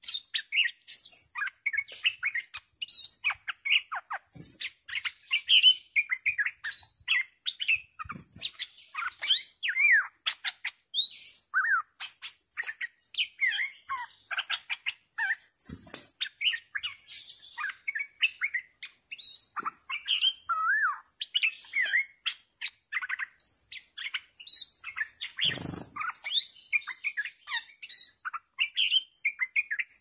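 Stripe-throated bulbuls calling back and forth in a dense stream of quick chirps and short whistled notes: a caged decoy and a wild bird answering it. A thin, steady high-pitched buzz joins about halfway through, and there is one low thump near the end.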